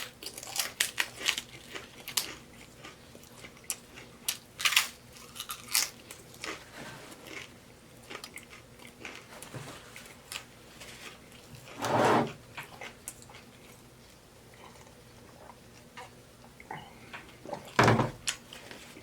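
A person chewing and crunching mouthfuls of taco salad close to the microphone, with crisp baked tortilla shell and lettuce: irregular wet clicks and crunches, with a couple of louder ones about two-thirds through and near the end.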